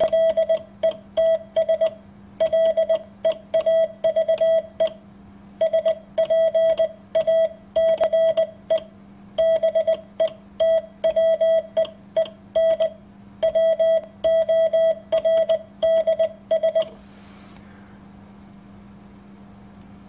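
Morse code sent on a hand key, heard as a sidetone beep of one steady pitch keyed in dots and dashes, spelling "LETS LEAVE SPACE BETWEEN WORDS" in five groups with clear gaps between the words. Faint clicks of the key go with the keying, over a low steady hum; the sending stops about three seconds before the end.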